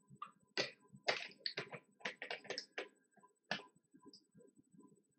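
A quick run of about a dozen sharp clicks and taps close to the microphone, bunched in the first three and a half seconds, then a few faint ones.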